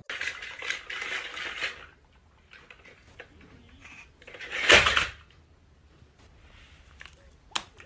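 A plastic toy dinosaur clattering over a wooden floor toward a snap mousetrap, with a rattling stretch at first and scattered small clicks. Just before five seconds in there is one loud, short, sharp clatter as the trap goes off. A single small click follows near the end.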